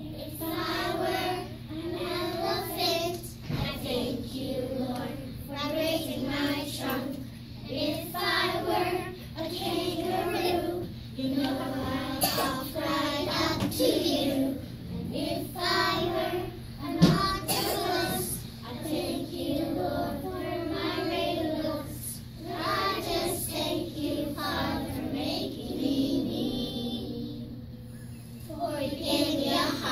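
A class of young children singing a song together, in phrases with short breaks between lines. A single sharp knock about seventeen seconds in.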